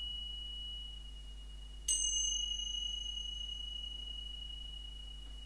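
Tingsha (small Tibetan hand cymbals) ringing with one high, pure tone. They are struck together again about two seconds in: a bright clash whose higher overtones die away within a second or so, while the main tone rings on and slowly fades.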